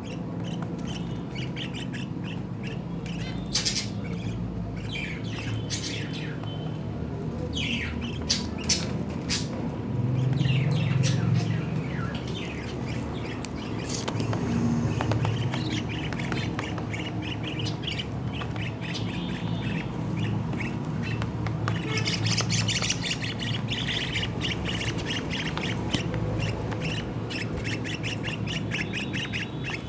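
Pet lovebirds squawking and chirping over and over in quick, short calls, with a burst of dense chatter near the end. A low rumble swells briefly about ten seconds in.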